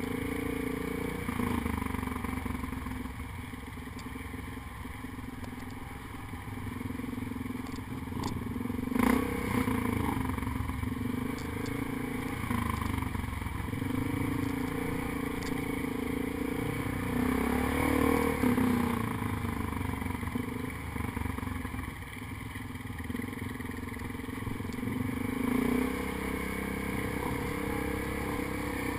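ATV engine running under way on a dirt trail, its note rising and falling with the throttle and climbing briefly about two-thirds of the way through. A sharp knock sounds about nine seconds in.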